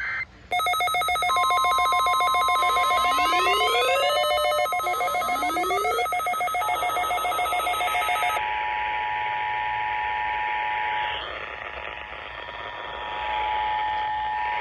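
Emergency Alert System monthly-test tones on NOAA Weather Radio receivers. A pulsing electronic alert beep with a steady single tone and several rising sweeps over it runs for about eight seconds, then the steady two-tone EAS attention signal takes over to the end.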